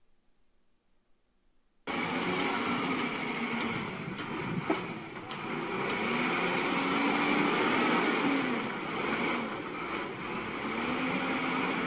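Loader working after about two seconds of near silence: a loud, steady machine noise with a tone that rises and falls several times as it revs, and one sharp click about five seconds in.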